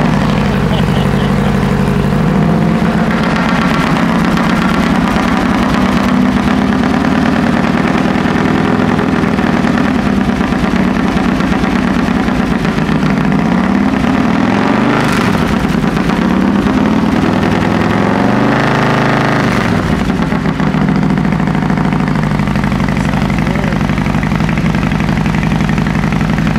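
Harley-Davidson Road Glide's 107 cubic-inch Milwaukee-Eight V-twin, fitted with a Stage 2 S&S 475 cam and a Khrome Werks 2-into-1 exhaust with no baffle, running loud at idle on its first start. It is blipped on the throttle and revs up and back down a few times in the middle.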